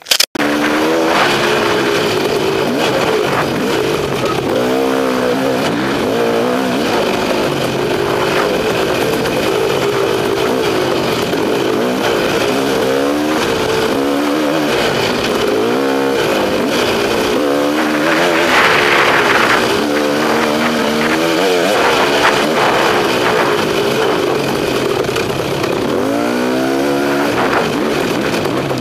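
KTM two-stroke enduro motorcycle engine, heard from a helmet camera, revving up and dropping back again and again as it is ridden along a trail, over steady wind and riding noise.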